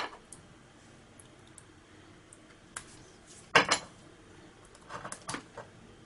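Scattered small metallic clicks and taps of steel tweezers picking at a small metal battery tab and fuse piece, loudest in a short cluster a little past halfway.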